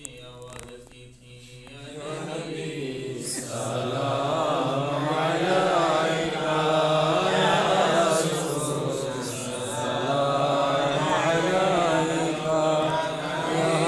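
Men chanting Arabic devotional blessings on the Prophet (salawat of a milad) in unison, swelling in about two seconds in and then sustained.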